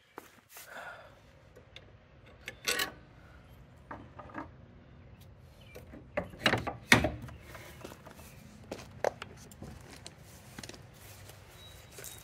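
A series of scattered knocks and clicks over a faint steady background, with a cluster of louder thumps about six to seven seconds in.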